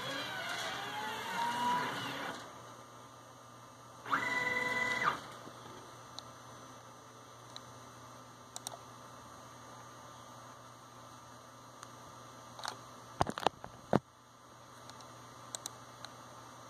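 Sharp mouse clicks, several in quick succession about 13 seconds in and one more a second later, on the reset buttons that clear the Mach3 pierce counters and cut timers. Before that, wailing tones that glide up and down fade out in the first two seconds, and a steady beep-like tone sounds for about a second around four seconds in.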